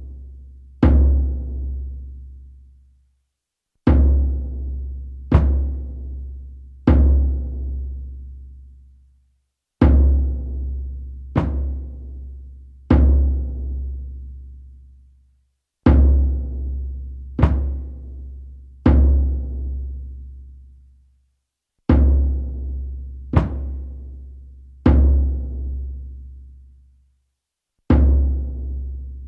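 Shamanic frame drum struck in a slow repeating pattern: three deep beats about a second and a half apart, then a pause of about three seconds. Each beat rings on and dies away before the next.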